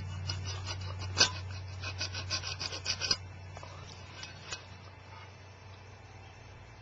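A Swiss Army knife blade sawing back and forth against steel: a run of quick rasping strokes about one to three seconds in, then fainter scraping.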